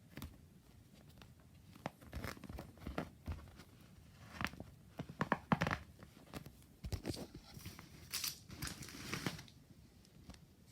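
Arm bands rubbing, a noisy rubbing sound in irregular bursts that starts about two seconds in and is loudest about halfway through.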